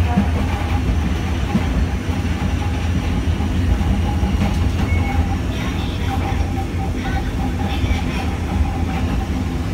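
Running sound of a Hiroshima Electric Railway 900-series streetcar with nose-suspended (吊り掛け) traction motors, heard from inside the car: a steady heavy rumble with a thin whine above it.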